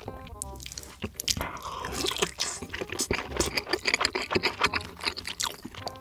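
Close-miked eating of fried meat and rice: biting and chewing with a quick, irregular run of wet mouth clicks and smacks that starts about a second in.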